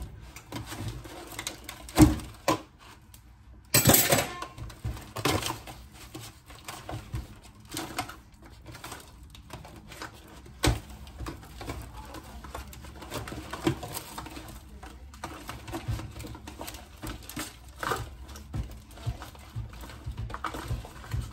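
Disposable aluminium foil pan crinkling and ticking as hands crumble baked cornbread in it, a steady patter of small crackles with a few sharper clicks and a louder rustle about four seconds in.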